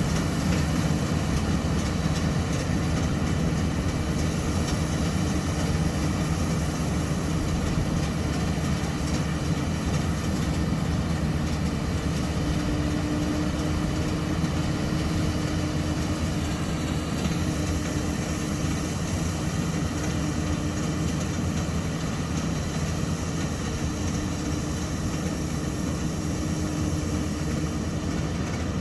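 LS MC85 combine harvester running steadily while harvesting grain: a constant engine hum under the dense noise of the threshing machinery.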